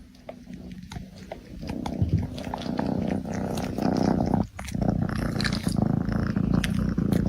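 A pet animal making a low, rough, rumbling growl that builds up over the first couple of seconds, breaks off briefly about halfway, then resumes.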